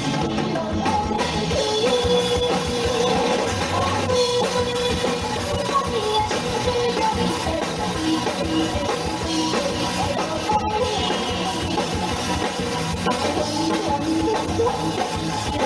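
Rock band music from a drum kit and guitar, playing steadily without a break.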